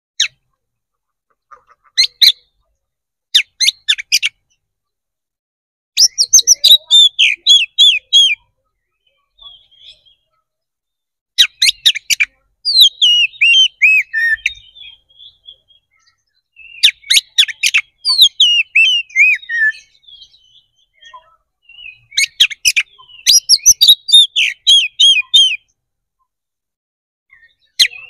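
Oriental magpie-robin (kacer) singing loudly in bursts of fast, sweeping whistles and trills. The bursts last one to four seconds and are separated by short pauses. This is the full, open fighting song that keepers call "ngeplong tarung".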